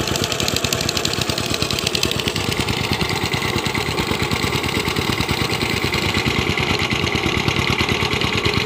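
Power tiller's single-cylinder diesel engine running steadily under load, with a rapid, even beat, as the two-wheel tractor tills waterlogged paddy mud.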